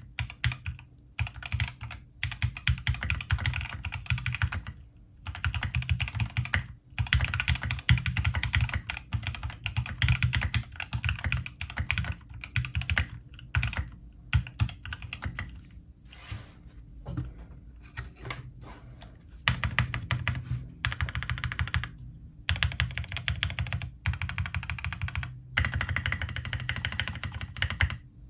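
Typing sound test on a Bakeneko 65 mechanical keyboard with factory-lubed Gateron Oil King linear switches and PGA-profile keycaps. The keys are struck in fast, dense runs of clacks, broken by short pauses every few seconds.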